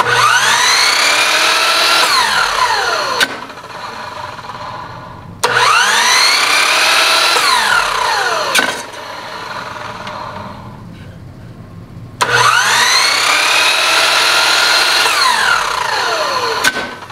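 Miter saw motor started three times: each time a rising whine as the blade spins up to full speed, then the pitch falls as the switched-off blade coasts down. Each run ends in a sharp knock as the slowing blade is lowered into the board and catches it in a mild kickback.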